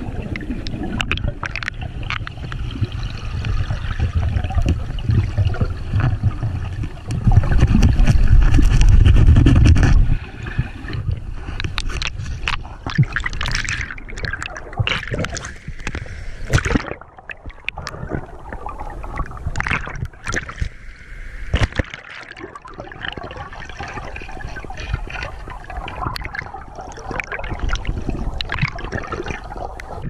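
Water gurgling and sloshing around a freediver's underwater camera in a river. A heavy muffled rumble fills the first ten seconds, loudest near the end of that stretch, then gives way to irregular splashing with sharp clicks and knocks.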